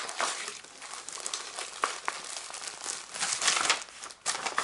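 Paper and plastic packaging being handled and crinkled, in irregular rustling bursts with a couple of sharp clicks about two seconds in and louder crinkling a little after three seconds.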